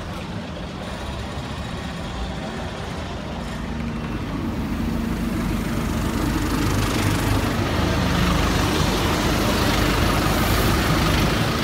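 A bus's engine running close by, getting louder from about four seconds in and staying loud, over general road traffic.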